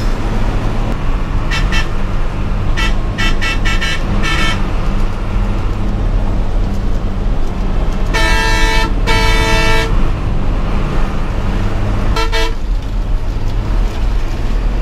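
Bus horn sounding again and again over the steady drone of the bus's engine, heard from inside the cab while overtaking: two short toots, a quick run of about six toots, two longer blasts, then two more short toots.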